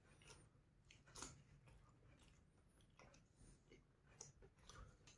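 Near silence with faint chewing: a few soft, wet mouth clicks and smacks as food is chewed with the mouth closed.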